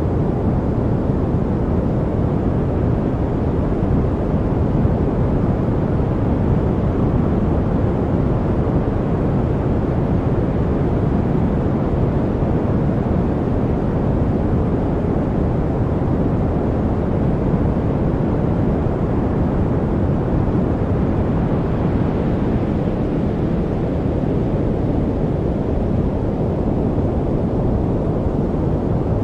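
Steady, unchanging noise track of the kind sold as white noise for studying, weighted toward the low end so it sounds deep and muffled rather than hissy.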